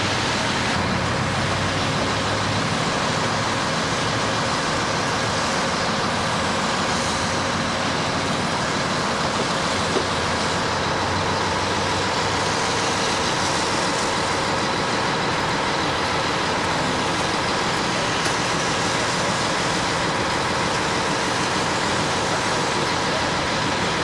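A fire truck's engine running steadily under a constant rushing hiss, with one sharp tick about ten seconds in.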